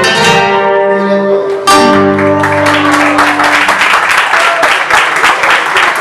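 Charango and acoustic guitar end a piece with a final strummed chord that rings out, and the audience breaks into applause about two and a half seconds in.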